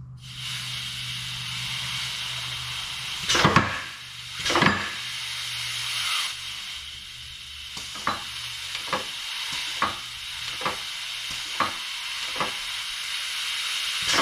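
Compressed air hissing steadily from the air-shift lines of an Eaton 13-speed transmission, air leaking at the fittings. Two loud clunks about three and a half and four and a half seconds in as the range section shifts, then lighter clicks about once a second.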